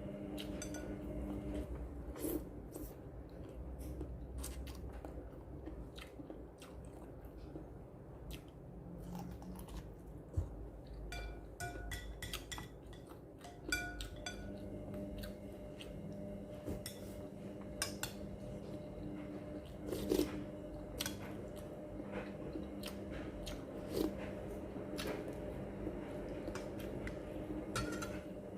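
A person chewing food close to the microphone, with scattered sharp clicks of utensils against dishes, over a steady low hum.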